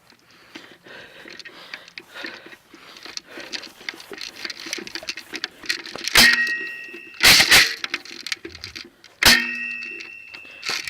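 Faint rustling, then sharp metallic clacks from an airsoft fight: one, a quick pair a second later, and another two seconds after that, the first and last leaving a short ringing tone like a BB striking metal.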